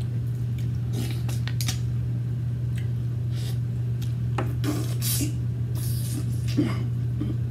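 Mussel shells clicking and scraping against each other and the glass bowls as the meat is picked out and eaten, in short irregular rasping scrapes. A steady low hum runs underneath.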